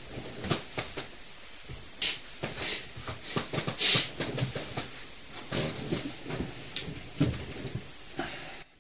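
A scattered series of small clicks and knocks mixed with a few short hissy rustles in a small room, the level dropping away suddenly near the end.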